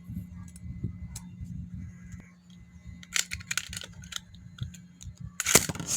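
Small plastic clicks and rattles from a Beyblade top being handled and switched between modes, with a louder burst of clicking and scraping near the end, over a steady low hum.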